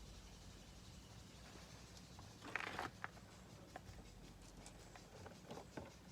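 Faint handling noises over a low room hum: a short rustle about two and a half seconds in, then a scatter of light clicks.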